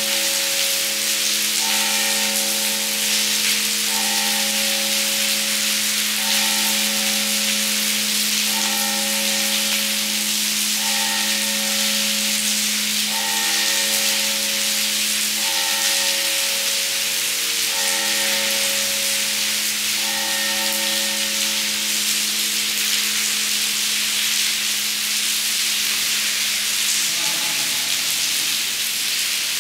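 Steady rain falling into a stone cloister courtyard. Under it, music: one held low note with a chord repeating about every two seconds; the chords stop about 22 seconds in.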